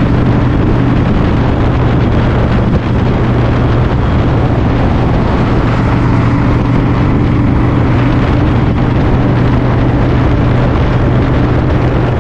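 Yamaha V Star's V-twin engine running at a steady cruising speed, under the rush of wind over the microphone.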